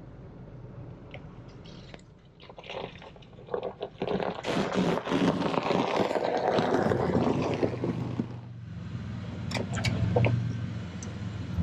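Car tyres crunching over snow as the car rolls slowly and pulls up. Near the end it settles into a steady low engine hum.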